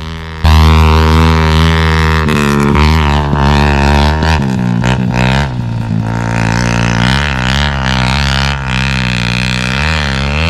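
Trail motorcycle engine running hard, its pitch rising and falling with the throttle and gear changes; it gets suddenly louder about half a second in.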